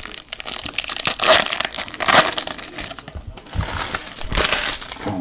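Foil trading-card pack wrapper crinkling and rustling as hands tear it open and handle it, with louder rustles about one and two seconds in and again near the end.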